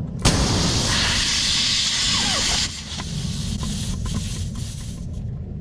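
Compressed air hissing through an air chuck into a car tire being inflated to 40 psi: a loud hiss of about two and a half seconds that drops suddenly to a quieter hiss for the rest.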